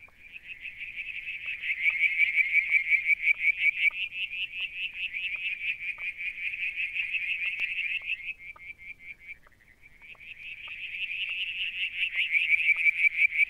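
A frog calling in a long, fast pulsed trill that swells in over the first couple of seconds, fades out about eight seconds in, and starts again a little over a second later.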